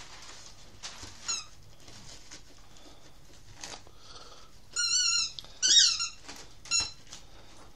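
A dog tearing the wrapping paper off a present, with paper rustling and ripping, and several high-pitched squeaks: a short one early, two longer and louder ones about five and six seconds in, and a short one near the end.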